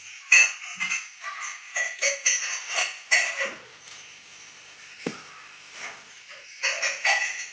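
Shoe packaging, paper and plastic, rustling and crinkling as it is handled, in irregular bursts with a quieter stretch in the middle.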